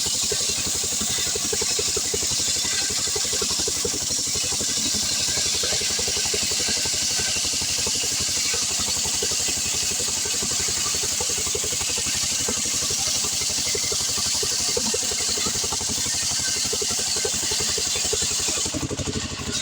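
Stihl 070 two-stroke chainsaw running at full throttle, cutting through an acacia hardwood log with a steady high hiss from the chain in the wood. Near the end the cutting noise and engine level drop off.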